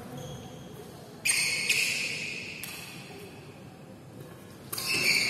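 Badminton rackets hitting the shuttlecock during a rally: two hard, sharp hits, one about a second in and one near the end, each ringing and fading through the large hall, with a couple of lighter hits between.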